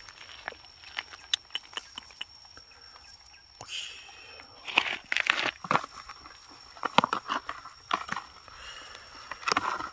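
Footsteps and rustling crunches over leaf litter and rocky ground: scattered clicks and scrapes, with louder bunches of crunching about halfway through and again near the end, and a faint steady high-pitched tone behind them.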